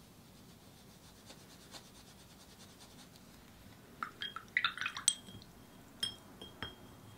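A paintbrush swished in a glass jar of rinse water, clinking against the glass several times from about four seconds in, with two more clinks near the end. Before that, faint brushing of thick gouache on paper.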